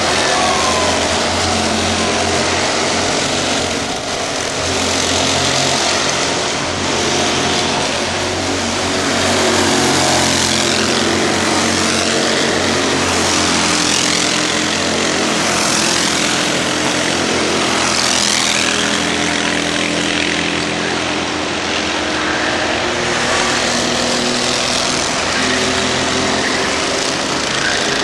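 Several racing kart engines running hard as the karts lap and pass, their pitch rising and falling as the drivers lift and accelerate through the corners.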